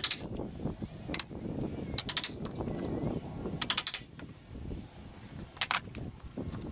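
Metal clicks and rattling from a router jig being handled and adjusted: four short bursts of sharp clicks about two seconds apart, with scraping and knocking between them.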